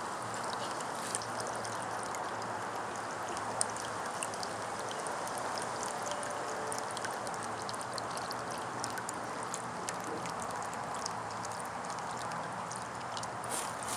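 Small bubbler fountain: water welling up and splashing back into its bowl, a steady trickling.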